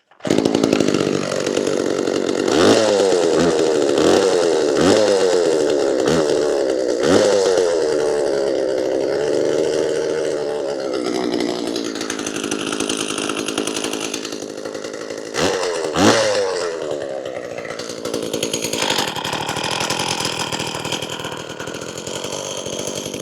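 Homelite Super 2 SL two-stroke chainsaw running, just started: revved up sharply about six times in quick succession early on, twice more later, and then settling to a steadier lower speed.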